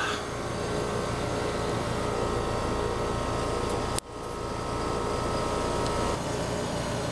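Newly installed Trane XR13 4-ton heat pump outdoor unit running at first start-up in cooling mode, a steady hum of compressor and condenser fan. The sound breaks off sharply for a moment about four seconds in, then comes back.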